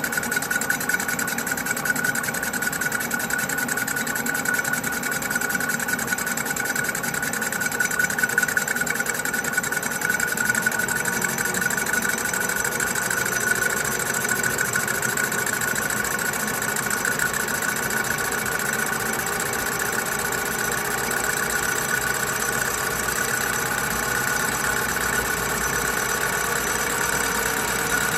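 Colchester Student lathe running under power, its four-jaw chuck spinning a metal plate while a cutting tool faces off the surface, giving a steady whine with the noise of the cut.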